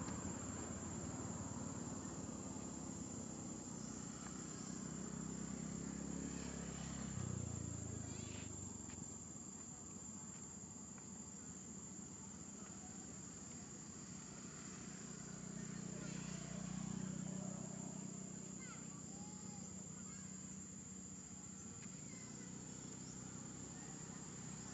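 Insects' steady high-pitched drone, with a low rumble that swells and fades twice.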